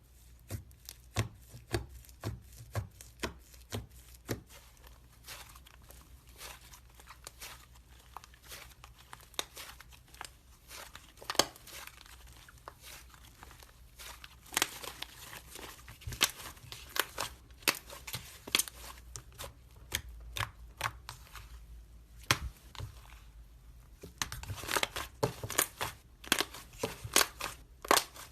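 Slime being handled: irregular sharp pops and crackles, coming thicker and faster in the last few seconds.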